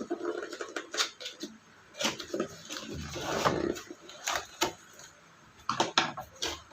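Unboxing handling sounds as the keyboard and its accessories are taken out of the cardboard box: scattered knocks and taps, with a stretch of rustling packaging about three seconds in.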